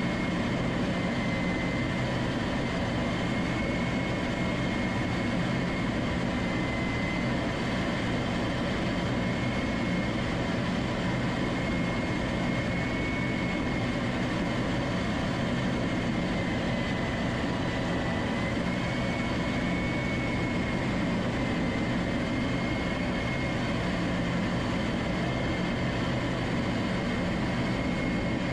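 Steady in-flight noise of an aircraft heard from a camera mounted on its outside: a constant rush of engine and airflow with a low hum, and a high whine that wavers slightly in pitch.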